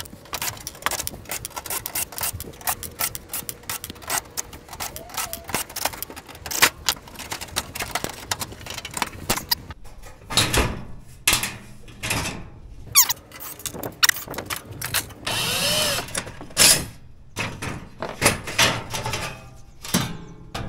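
A cordless drill/driver whirring in short runs as it backs screws out of a gas stove-oven's sheet-metal casing. Metal clanks and rattles come from the panels being worked loose and pulled off.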